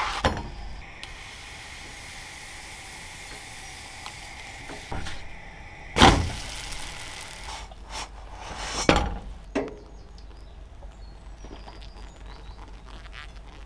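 Kitchen cooking sounds: several knocks and clatters of cookware or utensils over a faint steady hiss. The loudest knock comes about six seconds in, with others about five and nine seconds in.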